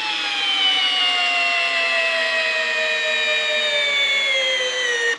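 Makita XPH14 cordless hammer drill driving a long lag screw into a wooden log through a socket adapter. Its motor whine falls steadily in pitch as it bogs down under the load, then cuts out suddenly at the very end before the screw is seated.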